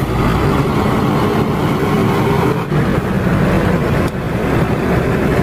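Concrete mixer truck's diesel engine running, a steady heavy rumble.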